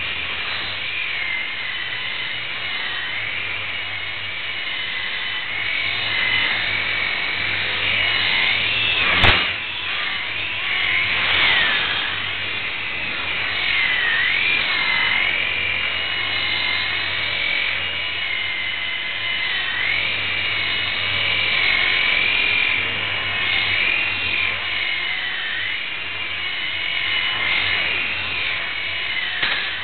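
Blade mSR micro RC helicopter's small electric motors whining, the pitch wavering up and down as the throttle changes. A single sharp click about nine seconds in.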